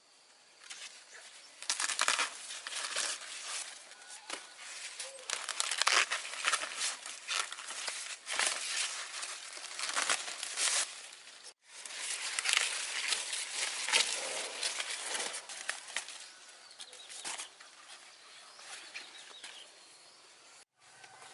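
Dense rustling and crackling, like dry leaves or material being handled and pulled, in irregular busy stretches. It cuts off abruptly twice.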